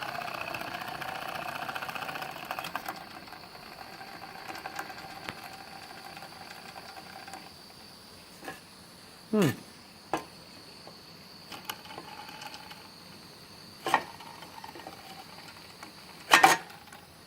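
Small model Stirling engine running with a light mechanical whirr, fading and stopping about seven seconds in. A few sharp knocks follow.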